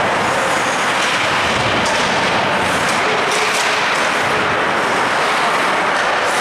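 Steady, noisy din of an ice hockey rink during play, with a few faint ticks.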